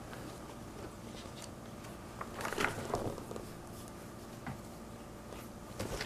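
Soft rustling of a storybook's paper pages being turned and smoothed by hand, with a few light taps; the rustle is loudest about two and a half to three seconds in.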